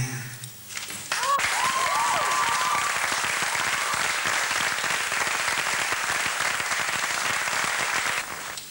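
Music ends in the first half second, then audience applause breaks out about a second in, with a few whoops in its first seconds, and stops sharply near the end.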